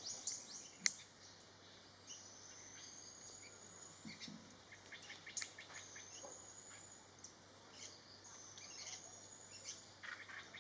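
Birds calling: three thin, high, drawn-out whistled notes of about a second each, with short high chirps scattered between them. A sharp click about a second in.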